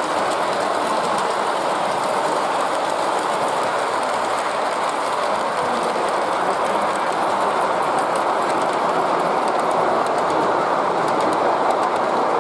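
G scale model train, a New York Central steam locomotive hauling Pullman passenger cars, rolling past on the layout track: a steady rumble of metal wheels on the rails, with faint clicking near the end.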